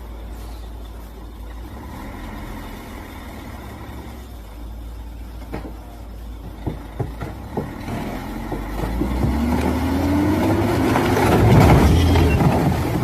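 Logging truck's diesel engine running low, with a few sharp knocks and creaks partway through. From about nine seconds the engine revs up, rising in pitch and growing louder, and is loudest near the end.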